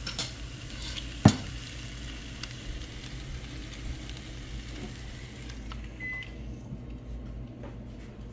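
Pork chops sizzling on the hot grill plate of a Ninja Foodi indoor grill, with a sharp knock about a second in. The sizzle fades after a few seconds, and a short high beep sounds about six seconds in, over a steady low hum.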